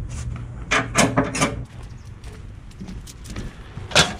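A series of knocks and clatters from loading work on a truck's flatbed, the loudest near the end, over a low engine hum that fades about halfway through.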